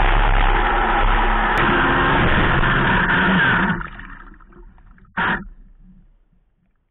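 Onboard sound of an electric RC hydroplane running at full power, loud motor and water-spray noise, which collapses a little under four seconds in as the boat turns hard right and crashes, the result of a steering servo glitch. A short loud splash comes about a second and a half later, then the sound fades away.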